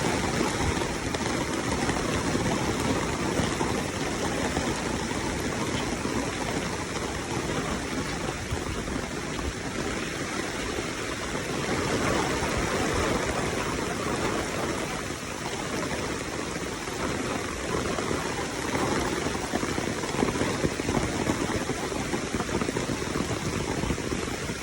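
Steady rushing noise of water.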